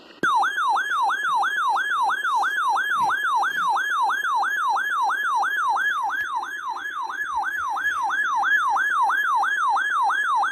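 Weather alert radio's siren alarm going off as it picks up a warning-alarm test. It is a loud electronic warble sweeping up and down about three times a second and cuts off abruptly at the end.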